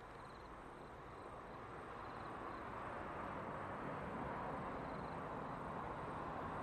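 Diesel locomotives hauling a freight train up a steep grade, their engines working under load, the sound growing steadily louder as the train approaches.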